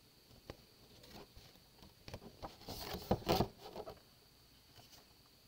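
Paper rustling and handling as the pages of a magazine-style coloring book are flipped and the book is closed, with scattered light clicks and a louder stretch of rustling about three seconds in.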